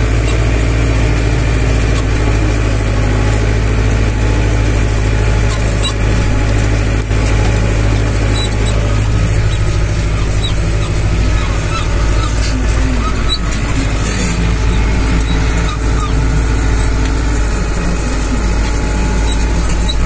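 Tractor diesel engine running steadily under load while it pulls a mouldboard plough through wet, muddy ground.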